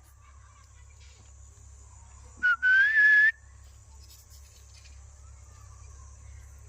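Pet parrot whistling: a short clear note, then a longer note that rises slightly in pitch, about two and a half seconds in.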